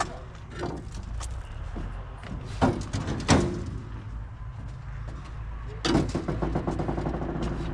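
A vehicle's engine running with a steady low rumble. Several sharp knocks and clunks come through it, two close together about halfway, and a rattling clatter starts near the end.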